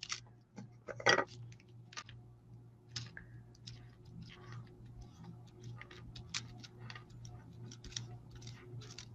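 Light irregular clicks and taps of cut paper pieces being handled and pressed down onto a card while they are glued, the loudest about a second in, over a steady low hum.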